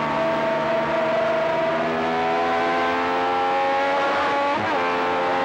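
Matra V12 Formula 1 engine heard onboard at high revs, its pitch climbing steadily as the car accelerates down a straight, with a brief dip and recovery in pitch about four and a half seconds in.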